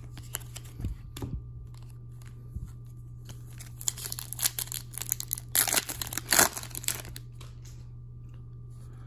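A few light taps of cards set down on a table, then the foil wrapper of an Upper Deck MVP hockey card pack crinkling and tearing open, loudest about six seconds in.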